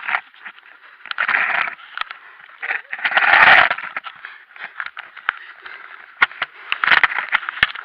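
Close, rough scraping and rustling as a climber scrambles over granite rock, with sharp clicks and knocks scattered throughout; the loudest scrape comes about three seconds in.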